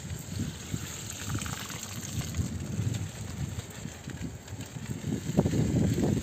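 Wind rumbling on the microphone over a steady hiss of bicycle tyres rolling along a wet concrete channel. The rumble grows stronger about five seconds in.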